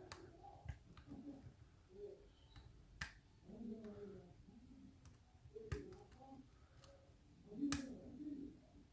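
Small, sharp metallic clicks of a hook pick working the pin stacks of a KIK lock cylinder under tension, a few irregular clicks as pins are probed and set, the loudest near the end. Faint low murmurs between them.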